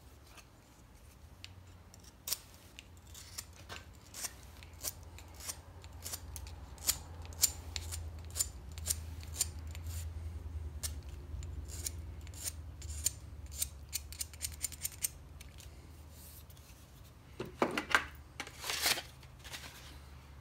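Steel knife and pencil clicking and scraping against a steel lawnmower blade while the knife's outline is traced onto it. The sharp clicks come irregularly, about one or two a second, over a low steady hum, with a louder spell of handling noise near the end.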